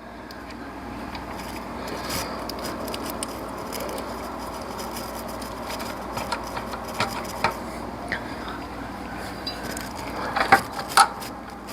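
Scattered light metal clinks and scrapes of tools and parts being worked into line in a car's engine bay, over a steady background hiss, with two sharper clanks near the end.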